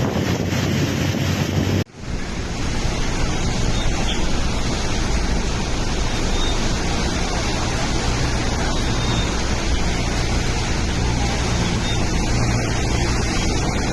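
Storm noise: a steady rush of wind and water, with wind buffeting the microphone. It cuts out for an instant about two seconds in and then carries on.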